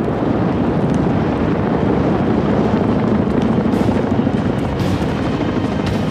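Forest fire burning, trees torching: a loud, steady rushing of flames with scattered sharp crackles and pops.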